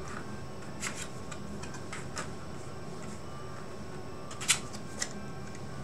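Faint taps and light scrapes of cardboard game cards being turned over and laid on a tabletop, with the sharpest tap about four and a half seconds in.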